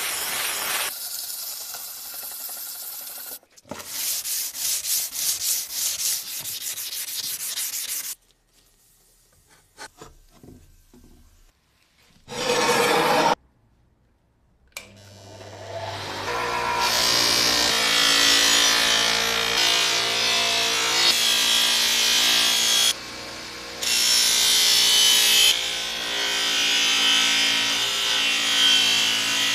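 Axe head being wet-sanded by hand with a sanding disc, in rhythmic rubbing strokes. Then, after a short loud scrape, a bench buffer motor is switched on and spins up. Its polishing wheel runs against the steel head with a steady motor hum under the rasp of polishing, breaking off briefly once.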